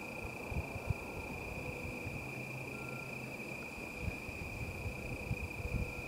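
Crickets trilling in one steady high unbroken note, with short irregular low thumps on the microphone.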